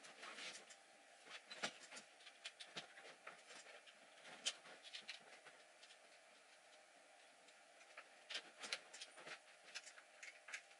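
Near silence broken by scattered faint clicks and light knocks, a small cluster of them near the end, from the amp head being handled and shifted on the workbench.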